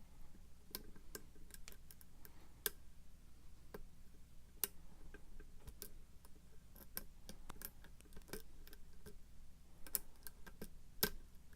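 Lock pick working the pins of a pin-tumbler lock under tension: irregular small metallic clicks and ticks as pins are raised and set, with a few sharper clicks, the loudest near the end.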